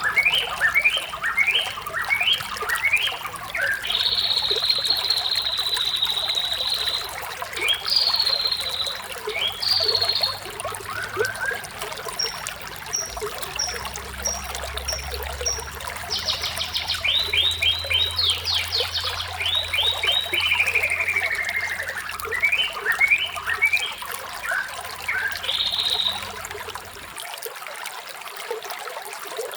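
Running water trickling steadily under a chorus of songbirds, with repeated quick whistled notes, trills and a long held whistle. A low rumble underneath stops near the end.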